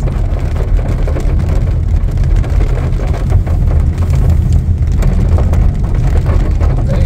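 Car driving in the rain, heard from inside the sedan's cabin: a steady low engine and tyre rumble, with rain hitting the car as a haze of fine ticks.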